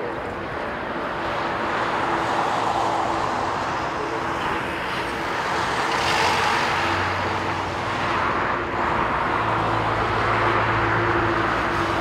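Boeing 777 freighter's twin GE90 turbofans at takeoff thrust as the jet lifts off and climbs away: a broad, steady jet noise that grows louder over the first couple of seconds and stays strong.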